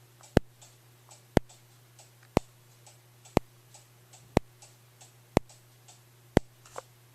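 System Sensor S1224MC remote strobe flashing, each flash giving a sharp tick about once a second, with fainter ticks between them over a steady low hum.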